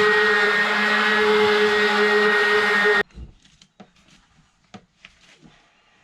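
Electric power tool grinding aluminium, running steadily at high speed with a constant whine, cuts off abruptly about three seconds in. Then only faint scattered clicks.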